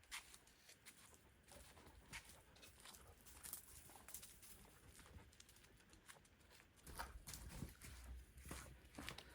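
Near silence, with faint, scattered short clicks and a weak low rumble about seven seconds in.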